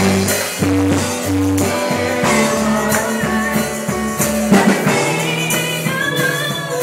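Live church worship band playing: sustained bass and keyboard chords with drums and tambourine, leading into a gospel praise song, with faint voices singing near the end.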